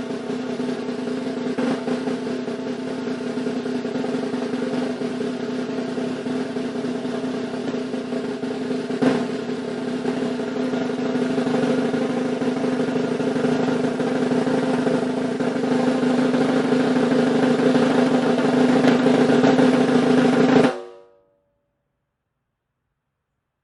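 A long, continuous drum roll that slowly grows louder, then stops abruptly near the end.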